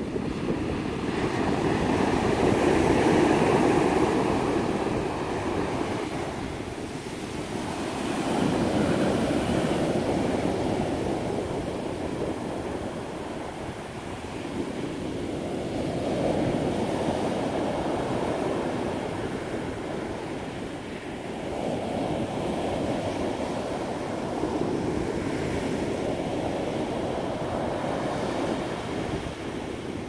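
Sea surf breaking and washing up a dark sand beach, the sound swelling and fading every several seconds as each wave comes in.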